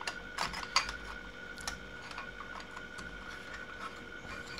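Light clicks and taps of a metal end panel being handled and fitted against the small metal case of a PreSonus TubePre V2 preamp. A few sharper clicks come in the first second and a half, then fainter, scattered ones.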